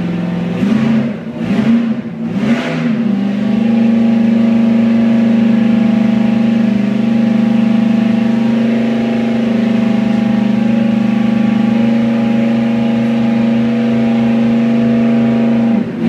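Holden 308 V8 stroked to 355 cubic inches, breathing through a Holley 750 four-barrel carburettor, running under load on an engine dyno and heard from the control room through the cell window. In the first three seconds the engine speed wavers with a few throttle blips, then it is held steady at about 3000 rpm until the revs drop away near the end.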